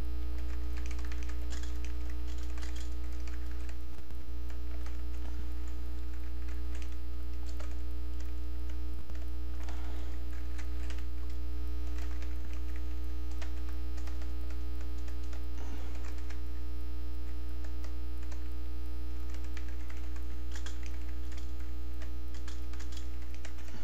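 Steady electrical mains hum, the loudest sound throughout. Computer keyboard keystrokes are heard over it in short runs as code is typed.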